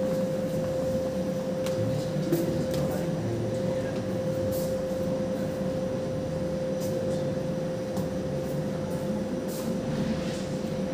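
Steady machine hum with a constant mid-pitched tone, broken by a few faint clicks.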